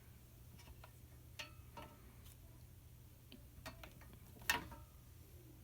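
Scattered small clicks and taps of wires being pressed into a black plastic cable fastener, with one sharper click about four and a half seconds in, over a faint low hum.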